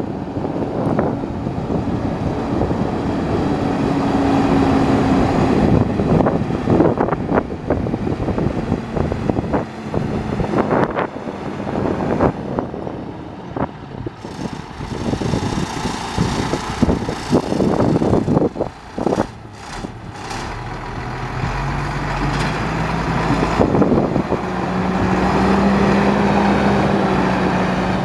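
1997 International 4900 bucket truck driving slowly on gravel, its diesel engine running steadily. The engine note climbs about three quarters of the way through as the truck pulls toward the camera.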